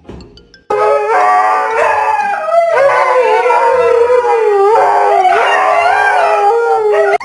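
Dog howling in one long, loud, wavering call, starting suddenly under a second in and cutting off abruptly near the end.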